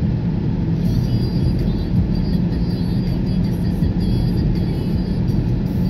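Steady low rumble of road and engine noise heard inside a car's cabin while driving.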